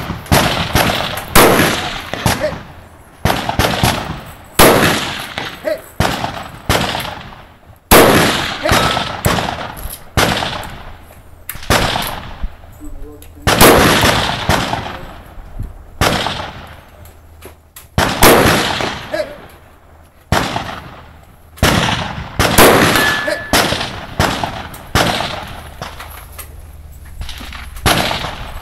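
A string of rifle shots fired at an irregular pace, about one every second or so, each with a ringing clang like a hit on steel. The shots ease off into a lull near the end.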